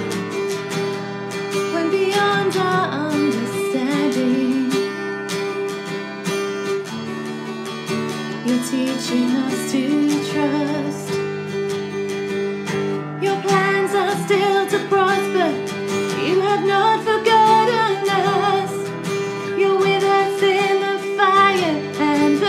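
Acoustic guitar strummed steadily while a woman sings a slow worship song, her voice coming in phrase by phrase over the chords.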